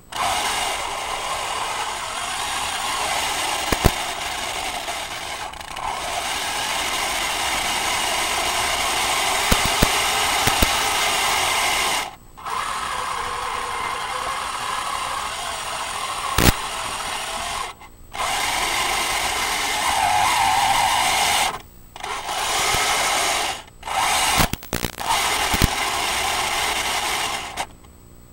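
Metal RC Tiger I tank driving: its brushless drive motors, gearboxes and metal tracks running as a loud, even mechanical whir, with scattered clicks. It cuts out abruptly about five times for a moment as the tank stops, then stops near the end.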